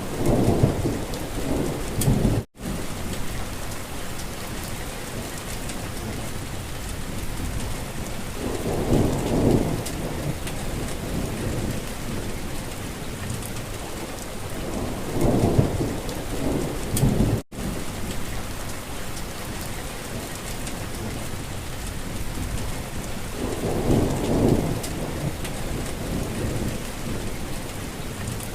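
Steady heavy rain with low rumbles of distant thunder swelling up every seven or eight seconds. Twice the whole sound cuts out for an instant, as at the seam of a looped recording.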